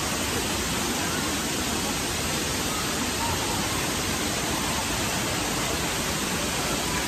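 Steady rushing hiss of running water from a splash pool's water-play features, even and unbroken throughout.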